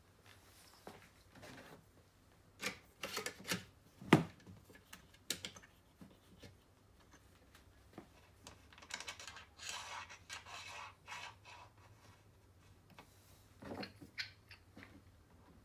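Hands working RAM Mount tablet holders on a Tough-Track rail: scattered hard plastic clicks and knocks, one sharp knock about four seconds in, and sliding and rubbing around the middle as the holder is moved along the rail. A handheld barcode scanner is picked up off the desk with a few clicks near the end, over a faint steady hum.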